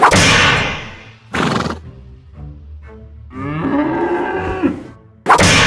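Cow mooing sound effect, one drawn-out call that rises and falls in pitch about three and a half seconds in, between short loud noisy bursts at the start, about a second and a half in, and near the end, over background music.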